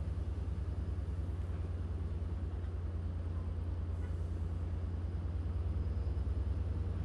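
Steady low, pulsing rumble of a push-pull diesel passenger train moving through the station, its EMD DE30AC diesel locomotive working at the rear.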